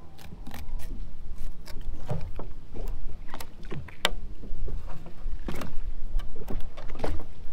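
Knife filleting a lookdown fish: irregular sharp clicks and knocks as the blade works through the fish, one louder click about four seconds in, over a steady low rumble of wind and water around the boat.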